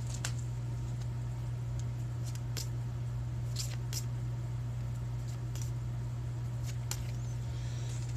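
Pokémon trading cards being handled and looked through, with a few scattered light clicks and snaps, over a steady low hum.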